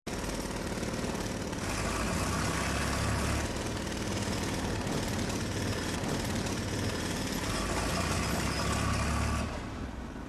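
Engine-driven hydraulic equipment running steadily while it screws a helical pier into the ground. The engine drone grows a little louder about a second and a half in and eases near the end.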